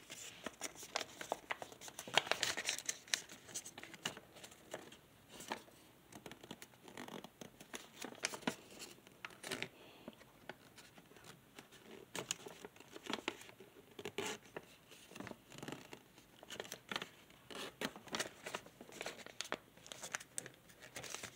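Origami paper crinkling and rustling under the fingers as it is folded and its creases are pressed flat. The sound is faint, irregular crackles and soft scratches.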